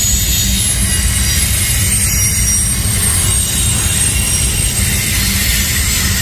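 Double-stack intermodal well cars rolling past on the rails: a steady low rumble with a faint high-pitched wheel squeal over it.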